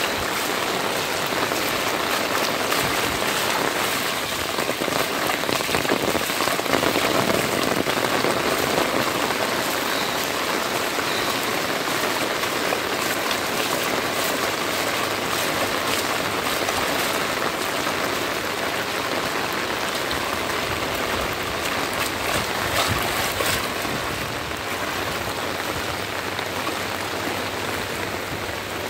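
Heavy rain falling steadily onto a flooded street, a continuous hiss of drops striking standing water.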